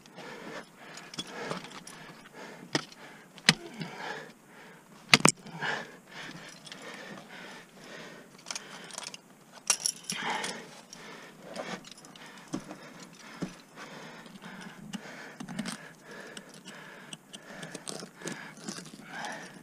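Ice-climbing hardware jangling and clinking on the climber's harness, with scraping and scattered sharp clicks from ice tools and crampons worked into snow-covered ice. The sharpest click comes about five seconds in.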